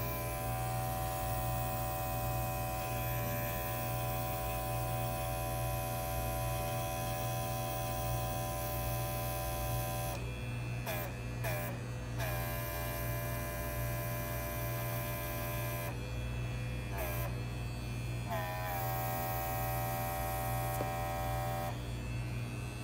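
Airbrush compressor running with a steady electric hum, with air hissing from the airbrush as it blows over wet acrylic paint. From about ten seconds in, the hiss cuts off several times and the motor's pitch wavers briefly each time.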